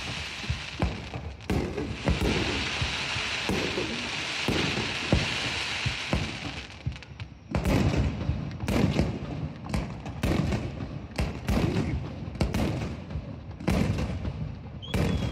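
Aerial fireworks shells bursting in a display: a rapid, irregular series of bangs. From about two to seven seconds in, a steady hiss sits under the bangs.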